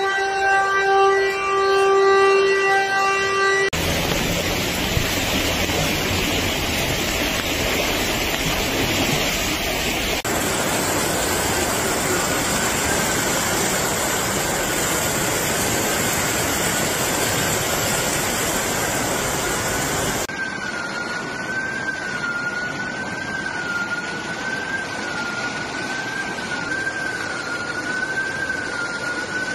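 A warning siren holds a steady tone, then cuts off. Loud rushing floodwater follows. Later a siren wavers up and down over the rushing water.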